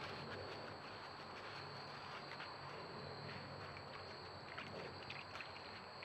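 Steady, high-pitched cricket chorus, with scattered faint clicks and rustles underneath.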